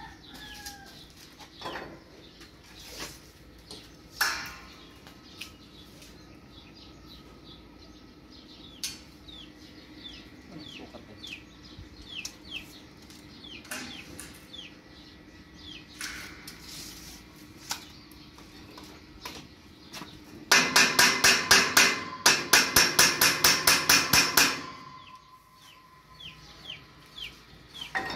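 Chickens clucking, with repeated short falling chirps and scattered knocks. About two-thirds of the way in, a loud rapid rhythmic clatter of about five beats a second lasts about four seconds.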